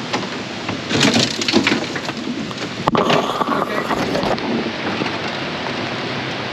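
Heavy rain pouring down, a steady loud hiss, with a sharp knock about three seconds in.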